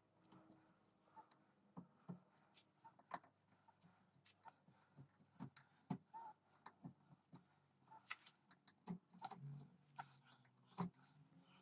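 Hand carving gouge paring a wooden knife handle held in a vise. It makes faint, irregular short cuts and clicks, about one or two a second.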